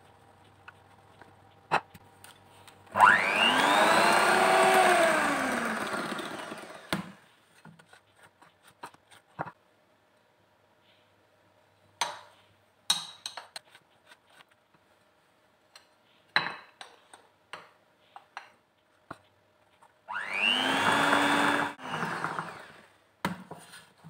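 Electric hand mixer beating eggs and sugar into a batter in a glass bowl, run twice. Each run starts with a quickly rising whine as the motor speeds up and ends as it winds down, the first about 3 seconds in and the second near the end. Between the runs come scattered light clicks and knocks.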